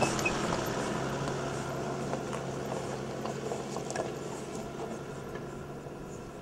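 Toyota Land Cruiser HDJ80's 4.2-litre turbodiesel straight-six running at low speed and fading steadily as the truck climbs away over a rocky track. Loose stones crunch and click under the tyres, with a few sharper knocks around two to four seconds in.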